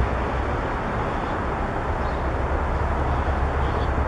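Reading Blue Mountain & Northern 4-6-2 steam locomotive No. 425 standing at the station, giving off a steady hiss over a low rumble.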